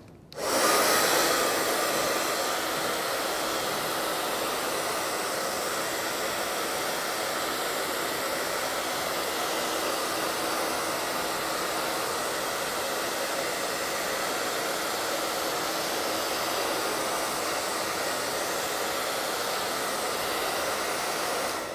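Handheld hair dryer running steadily, blowing air over a freshly painted box lid to dry the acrylic paint. It switches on just after the start, a little louder for the first second, and shuts off near the end.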